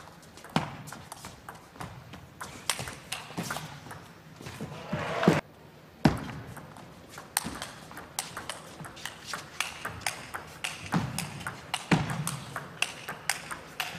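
Table tennis rallies: the celluloid ball clicking sharply off rubber rackets and the table in quick back-and-forth exchanges. About five seconds in, a rise of crowd noise breaks off suddenly, and a second rally of clicks follows.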